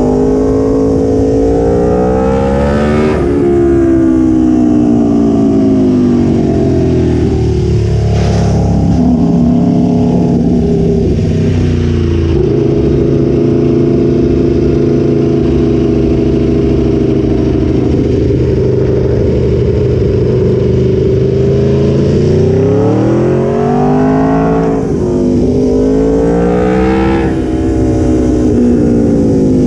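Aprilia Tuono V4 1100's V4 engine heard from on board the bike, revving up and dropping back as it accelerates and shifts, with its pitch rising and falling in repeated sweeps. It holds a steady note for about ten seconds in the middle, then pulls up through the revs again twice near the end.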